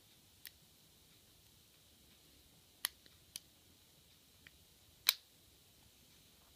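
Lock pick working the pins inside an ASSA ABLOY padlock's core: about five sparse, faint clicks, the loudest about five seconds in, as the pins are probed for movement.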